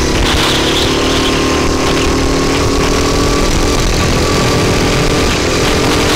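Rental go-kart engine running at a fairly steady pitch, heard onboard from the driver's seat over a heavy rushing noise, with a slight change in pitch about halfway through.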